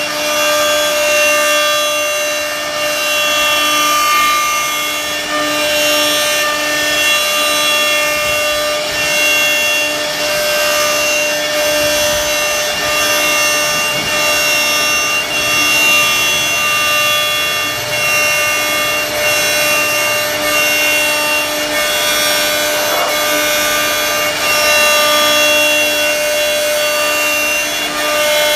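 CNC wood router running at a steady pitch as its bit carves into a wooden panel, with continuous cutting noise.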